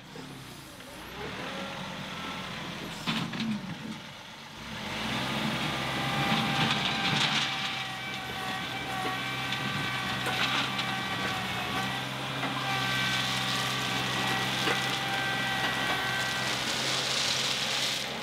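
John Deere 2038R compact tractor running with a steady whine while its loader bucket, fitted with a Heavy Hitch tooth bar, is back-dragged over loose crushed stone. The scraping and crunching of rock grows louder about five seconds in.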